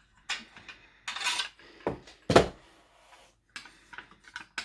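Hard plastic handling of a cordless power tool and its Makita LXT battery pack being removed. There are small clicks, a scraping slide about a second in, then two sharp knocks around two seconds in, the second one loudest.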